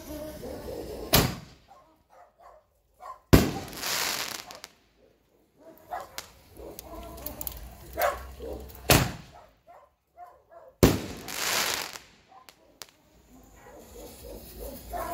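Two 60 g canister shells fired in turn from a mortar rack. Each launch thump is followed about two seconds later by the shell's burst overhead, a sharp bang with a noisy tail lasting a second or so.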